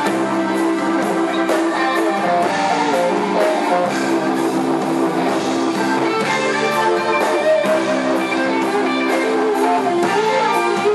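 Live blues band: a distorted electric guitar playing held chords, with drums keeping a steady beat.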